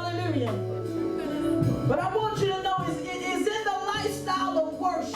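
Church worship music: a voice singing over held low instrumental notes.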